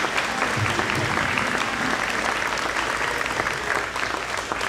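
Audience applauding: dense clapping of many hands, easing slightly near the end.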